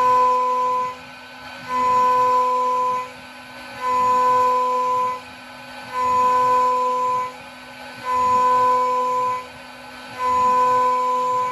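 DIY CNC mill's end mill cutting aluminium in repeated passes: each pass is about a second and a half of loud cutting with a steady singing tone, coming back about every two seconds over the steady hum of the spindle. The mill is cutting normally again with its X-axis lead-screw bearing replaced.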